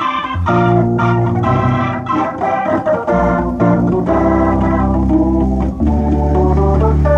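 Electronic keyboard played live: sustained chords that change every second or so, with a low bass note held from about six seconds in.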